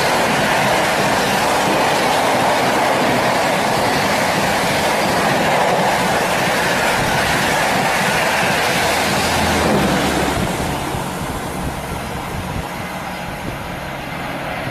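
Express train of red passenger coaches running through a station at speed: a loud, steady rush of wheels on rail that eases off after about ten seconds as the last coaches go by.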